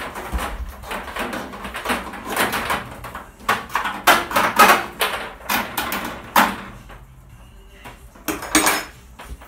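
2.5 mm twin-and-earth cable being pulled and fed through holes in a van's bare sheet-metal body panels: irregular scraping and rubbing of the plastic sheath against the metal, in bursts, with a last short burst near the end.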